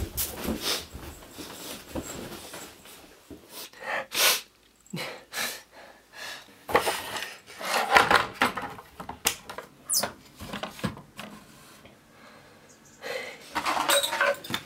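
Irregular knocks, clatters and rustles of someone rummaging by hand, lifting, moving and opening things, among them a wooden box on wooden bed slats.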